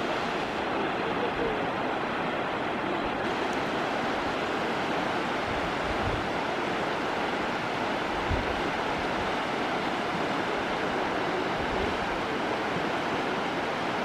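Steady rush of the L'Assomption River running over shallow rocky riffles, with a few brief low wind buffets on the microphone.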